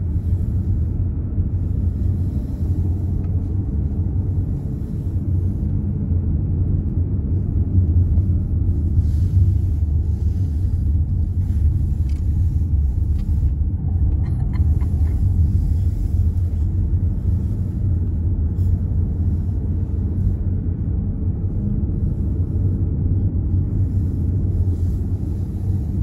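Steady low rumble of a car's road and engine noise, heard from inside the cabin while driving on a winding descent.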